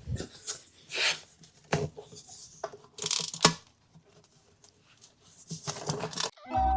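A series of short scraping and rubbing strokes on hard material, with a sharp click about three and a half seconds in. Background music comes in near the end.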